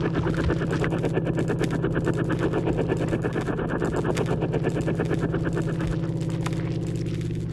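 Sound-design texture: a rapid, even rattle of pulses over a steady low drone, smoothing into a plain hum near the end.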